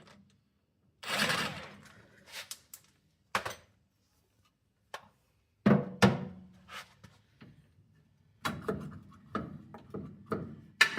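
Irregular clanks and knocks of hand tools and drum-brake parts being handled during brake work: a louder clank about a second in that rings off briefly, a few single knocks, a cluster around six seconds, and a run of knocks near the end.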